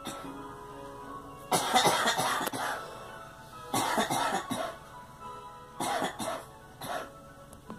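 A girl coughing in three fits of several coughs each, a second or two apart, over background music.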